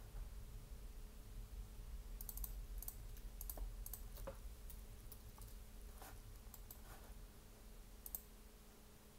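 Light computer keyboard and mouse clicks, a scattered run of short taps as a number is typed into a software field, over a faint steady low hum.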